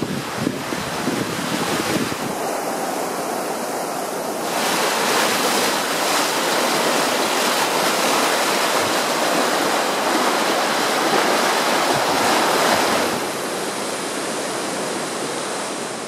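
Swollen River Greta in flood, a steady rush of fast-flowing floodwater, with wind buffeting the microphone in the first couple of seconds. It grows louder about four seconds in and eases off about thirteen seconds in.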